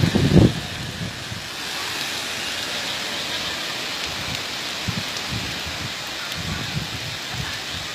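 Steady hiss of cyclone wind and rain, with a few low gusts buffeting the microphone, the strongest near the start.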